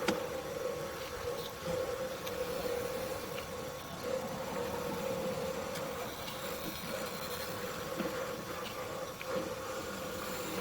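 A steady machine hum at one constant pitch, with a few faint knocks, that fades out near the end.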